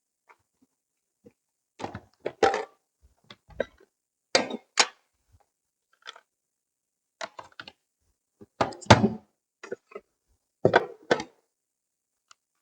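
Short clusters of knocks and rattles, about eight bursts each lasting under a second, separated by silence.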